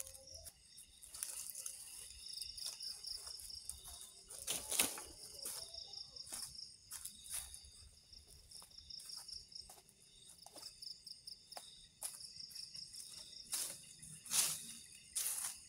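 Insects chirping in a steady, pulsing high trill, broken by scattered crunches of dry leaves and twigs underfoot and in the hands, the loudest about five seconds in and again near the end.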